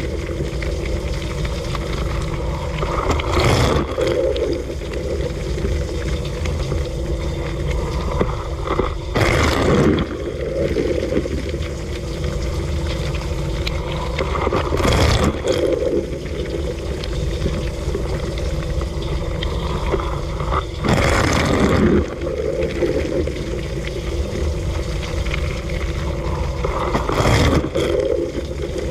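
Dishwasher running through a wash, heard from inside the machine: a steady pump hum under spraying, sloshing water, with a louder surge of spray about every six seconds.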